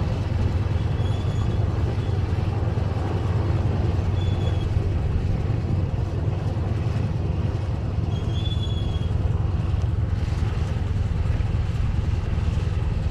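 Antonov An-2's nine-cylinder radial engine running steadily with a deep, even rumble. A few short, high squeaks sound faintly over it.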